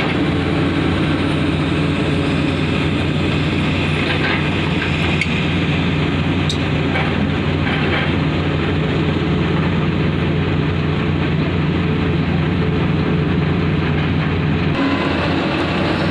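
Heavy diesel engine of a Komatsu PC450 excavator running steadily under load while digging, a low constant drone with a few faint clanks midway. The engine note changes near the end.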